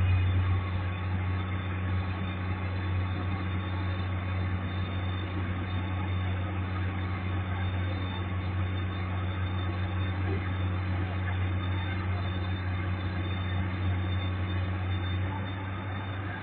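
Komatsu PC200 hydraulic excavator's diesel engine running with a steady low drone.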